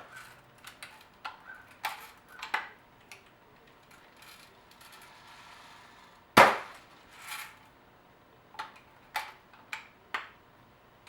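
Daisy Red Ryder lever-action BB gun being handled and fired: a scatter of small mechanical clicks and clacks, with one loud sharp shot about six and a half seconds in.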